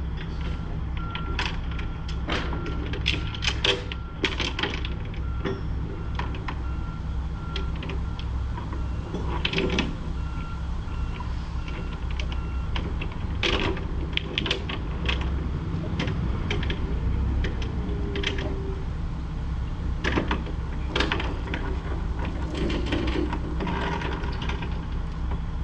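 A diesel engine running steadily at idle, with repeated sharp metallic clicks and clanks on top. A faint, evenly repeating beep is heard through roughly the first half.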